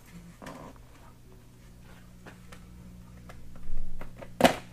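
A motorcycle helmet being pulled on and its chin strap worked, giving faint scrapes and ticks over a steady low hum. One sharp click comes near the end.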